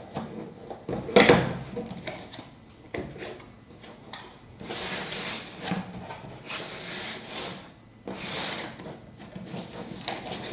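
Cardboard packaging being handled as a router is worked out of its box: a knock about a second in, the loudest sound, then several stretches of rubbing and scraping, about a second each.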